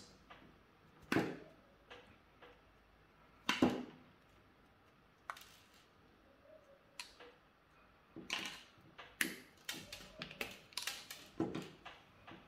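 Pliers and copper wire being handled while the wire ends are twisted together: scattered light clicks and knocks, a few at first, then a quicker run of clicks over the last few seconds.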